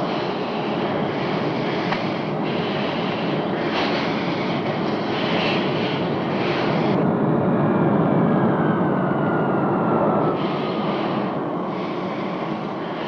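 Loud rushing roar of air and jet noise inside an airliner cabin that has just suffered explosive decompression from an on-board bomb blast. The roar surges in waves, and over the second half a whine slowly falls in pitch.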